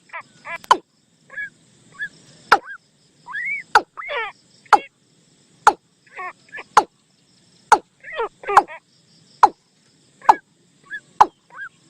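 A recorded bird lure call played on a loop: sharp clicks about once a second, mixed with quick runs of short calls that fall in pitch.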